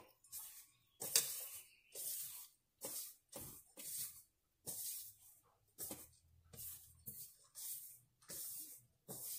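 A hand rubbing and tossing dampened ragi (finger millet) flour in a stainless steel pot: a run of soft, dry swishing strokes, roughly one or two a second, as the water is worked into the flour to make it crumbly for puttu.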